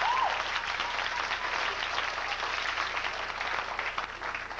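Club audience applauding, with a short whooping cheer right at the start; the clapping thins out toward the end.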